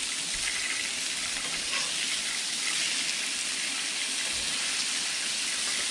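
Walleye fillets frying in butter on a flat-top griddle: a steady, even sizzle.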